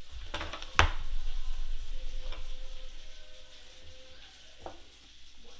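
Sharp little clicks and taps from a small screwdriver and tiny screws being handled while the bottom-panel screws of a MacBook Air are taken out. Two clicks come just under a second in, a fainter one about two seconds later, and another near the end.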